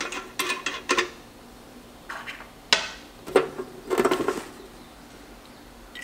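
Small glass bottle and metal fittings clinking and clicking as the bottle is fitted to the oil-drain port of a smoke leak detector, to drain its smoke fluid: a quick run of knocks at first, then a few single clicks and a short cluster.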